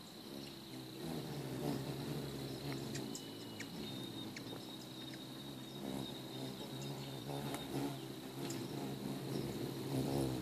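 Ruby-throated hummingbirds' wings humming as several birds hover and come and go, a wavering buzz that swells as birds fly close, loudest near the end, with scattered short high chips.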